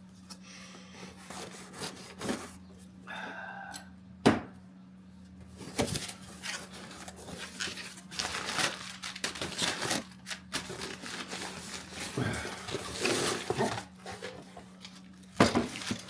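Parts packaging being opened, torn and crinkled as a water pump is unwrapped, with a sharp knock about four seconds in and another near six seconds, then continuous rustling and crackling.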